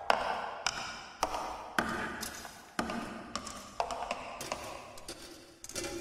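Sample-based electronic piece made of chopped sound clips playing back: sharp percussive taps and pings about twice a second, each decaying quickly over a noisy texture.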